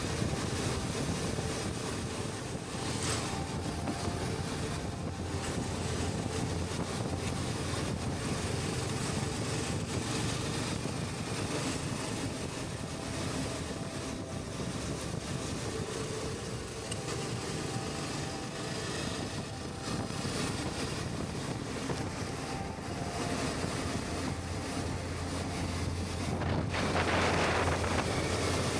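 Wind buffeting the rider's microphone while a Suzuki V-Strom 650 cruises on the highway, with the motorcycle's V-twin engine and tyre noise as a low drone underneath. A louder rush swells and fades near the end.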